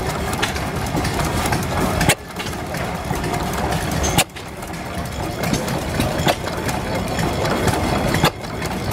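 1891 Van Duzen walking-beam gas engine running, with a steady mechanical clatter from its moving parts and three sharp bangs a couple of seconds apart.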